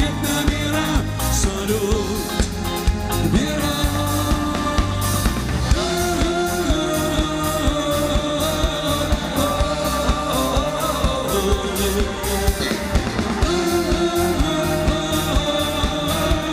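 A live pop-rock band of drums, electric guitar and keyboards plays a song while a male lead singer sings over a steady drum beat.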